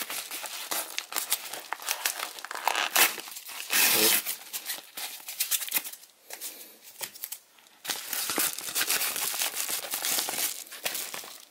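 Yellow padded kraft mailer being handled and torn open by hand: irregular paper crinkling and tearing, with a short pause about two-thirds of the way through.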